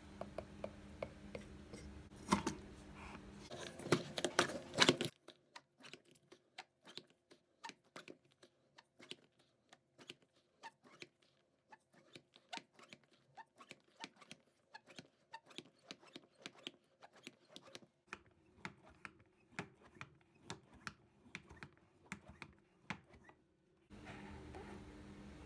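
Many light, irregular clicks and taps, several a second, with a few louder knocks in the first five seconds.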